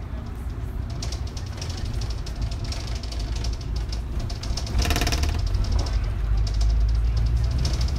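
A double-decker bus's engine running, heard from inside on the upper deck: a steady low rumble with light rattling. There is a brief harsh burst about five seconds in, and the rumble grows louder near the end.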